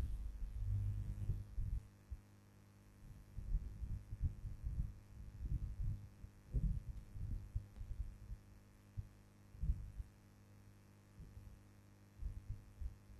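Steady low electrical hum on the recording microphone, with irregular soft low thumps scattered through it.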